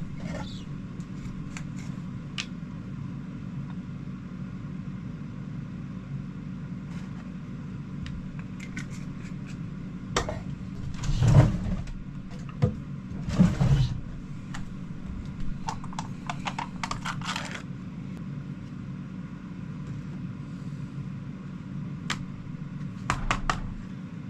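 Steady low hum of a small electric fan running, with scattered light clicks and clatter of kitchen containers and utensils being handled. Two louder knocking bumps come about halfway through.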